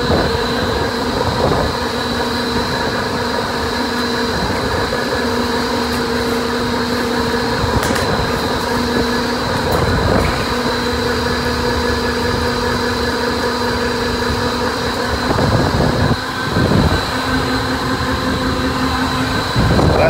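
Cooling tower running: a steady mechanical hum over the rush of water falling into the basin, with a few short knocks from handling the sump screen near the middle and toward the end.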